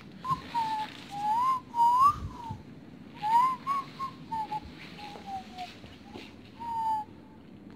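A person whistling a tune in short phrases that rise and fall, with brief pauses between them.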